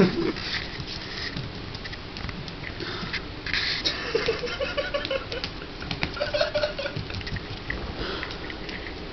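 A small puppy's paws pattering and scuffing on a tile floor as it moves about, with two brief high-pitched cries, about four and six seconds in.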